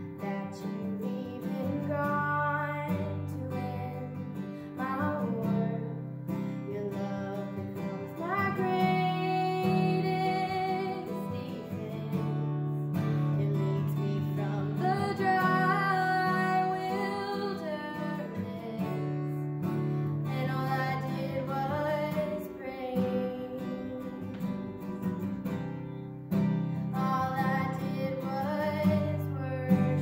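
A woman singing to acoustic guitar accompaniment.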